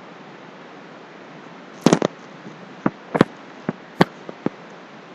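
A quick run of about nine sharp clicks and taps, some in close pairs, starting about two seconds in, over a steady hiss.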